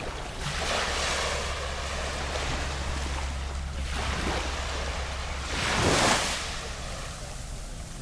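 Small waves lapping on a sandy beach, each wash swelling and fading, with the loudest one breaking about six seconds in, over a steady low rumble.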